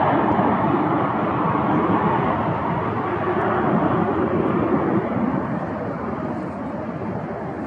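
Airbus A321 jet engines at takeoff thrust during the takeoff roll: a steady roar that slowly fades as the plane moves away down the runway.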